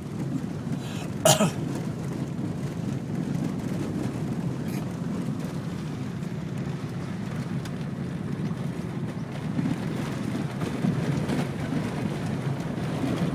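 Steady low rumble of a car driving slowly along a dirt track, heard from inside the cabin. One short, sharp noise stands out a little over a second in.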